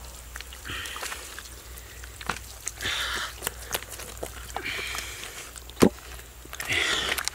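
Hands rubbing a wet red spice paste into raw pork skin: squelching strokes about every two seconds, with small wet clicks and one louder sharp click about six seconds in.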